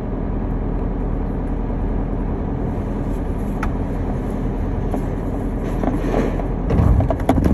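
Steady low rumble of vehicle engines running in a truck loading area. Near the end it grows louder, with a few sharp knocks.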